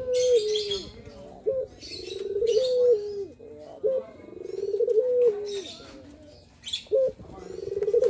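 Male Barbary (ringneck) dove cooing its song over and over, about every three seconds: a short note, then a rolling purr that swells louder, ending in a held coo that steps down in pitch. Higher chirping comes in between the coos.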